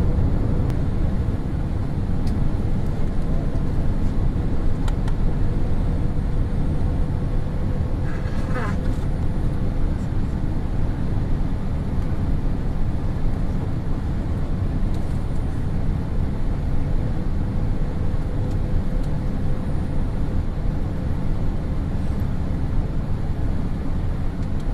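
Steady cabin noise inside a Boeing 787-8 airliner in flight: a low rushing of airflow and engine, with a faint steady hum, and a brief faint sound about eight seconds in.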